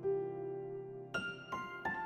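Gentle instrumental score: a held piano note fades, then about a second in new notes come in and a run of short, high notes begins.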